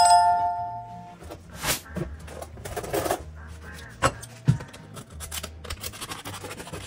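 A two-tone electronic chime rings at the start and dies away about a second in, over soft background music. Scattered scrapes and clicks of kitchen handling follow, with a knife cutting into a crusty bread roll near the end.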